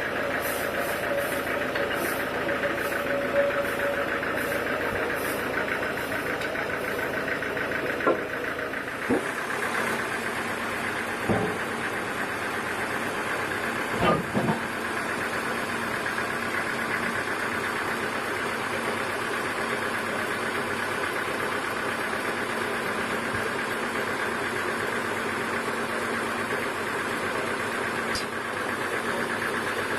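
Sawmill machinery running steadily, with a few sharp knocks in the middle, and its hum changing pitch about a third of the way in.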